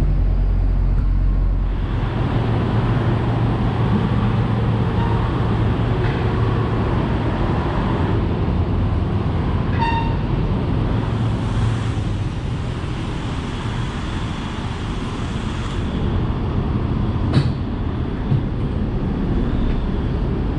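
A diesel truck engine idling steadily in an echoing service bay, its low hum strongest at first. There is a short high beep about halfway through and a sharp knock near the end.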